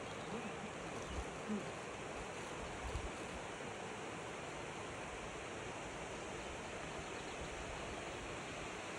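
Steady rushing outdoor noise, with a few low bumps in the first three seconds.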